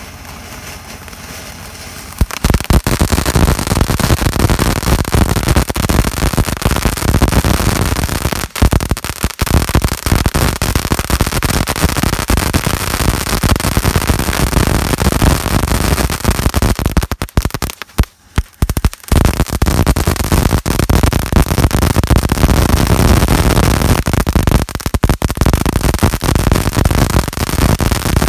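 WISEGUY All-in-One Eruption firework fountain going off: a dense, continuous mass of pops and crackles that jumps from a softer spray to full loudness about two seconds in. It drops away briefly about two-thirds of the way through, then comes back just as loud.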